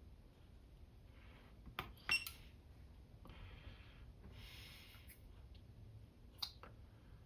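Quiet workbench handling: a few small clicks and taps, a pair about two seconds in and another near the end, with soft breaths in between.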